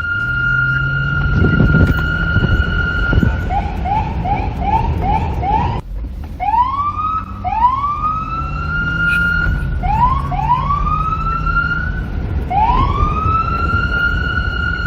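A police car siren cycling through its tones. It holds a steady high tone, then breaks into a quick run of short rising chirps, about two and a half a second. After a brief break about six seconds in, it sweeps up again and again, each swoop levelling off at a held high pitch. A low rumble runs underneath.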